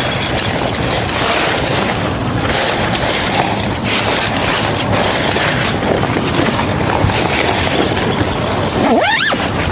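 Steady wind noise on the microphone with rustling and handling of tent fabric as a one-touch camping cot is set up inside the tent. Near the end comes a short sliding pitched sound, rising and falling.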